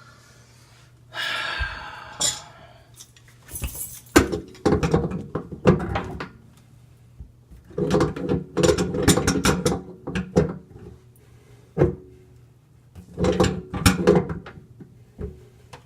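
Hollow knocks and clunks of hands working on a kitchen sink's drain fittings and strainer cup underneath the sink, in several bursts, with a short rushing noise about a second in.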